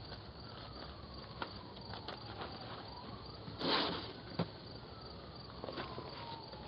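Outdoor ambience through a video doorbell's narrow-band microphone: a steady thin high hum like insects, with a short loud rustling burst a little over halfway through and a sharp click just after it.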